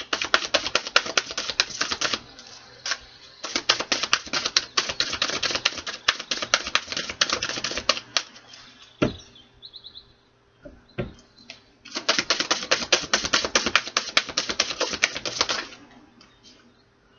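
A deck of tarot cards being shuffled by hand: three runs of rapid flicking clicks with short pauses between them, and a few single knocks in the middle pause.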